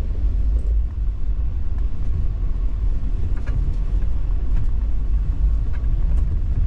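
Steady low rumble of a moving Amtrak long-distance passenger train, heard inside a sleeper compartment, with a few faint ticks or rattles.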